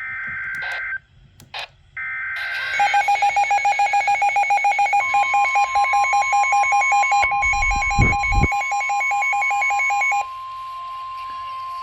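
Emergency Alert System SAME header data bursts, screeching two-pitch data tones about a second long, followed by a weather radio receiver's alert alarm beeping rapidly between a low and a high pitch. About five seconds in, the steady 1050 Hz NOAA Weather Radio warning tone comes in under the beeping and holds after the beeping stops; a brief low thump sounds near the eight-second mark.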